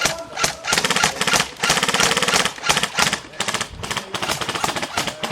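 Airsoft electric guns firing on full auto: a few separate shots, then a long fast rattling burst from under a second in to about three seconds, followed by shorter, quieter bursts.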